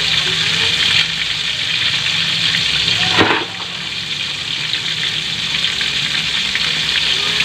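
Flour-coated chicken pieces sizzling in hot oil in a steel wok, a steady frying hiss. A short sharp sound about three seconds in, after which the sizzle is a little quieter.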